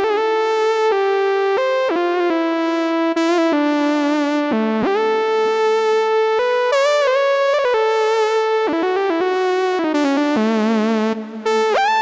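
Yamaha Montage M8X synthesizer playing a single-note lead melody. Notes slide into one another, and some held notes waver with vibrato.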